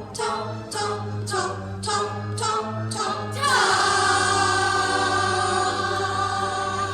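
A group of children singing together over a musical backing, several short sung notes and then a long held final note from about halfway through.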